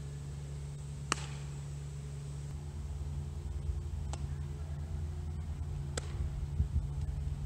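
Three sharp pops of a baseball smacking into a leather glove during a throwing drill, the loudest about a second in, over a steady low wind rumble on the microphone.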